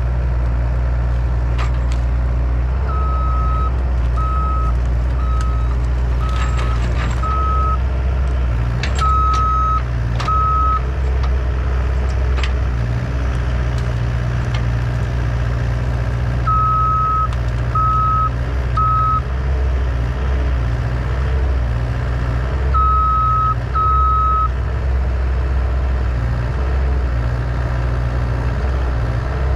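Mini excavator's diesel engine running steadily under work, with its travel alarm sounding in three runs of short beeps, and a few sharp clicks and snaps from the tracks and the tree being pushed.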